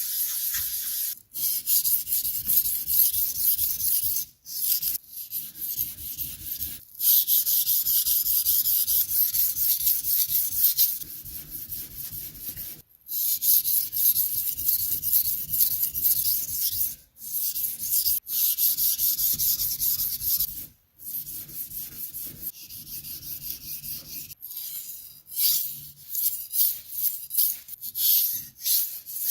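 Steel chef's knife edge being sharpened on a 500-grit whetstone: a gritty scraping rasp in runs of strokes with short pauses between them, turning into shorter, quicker strokes near the end.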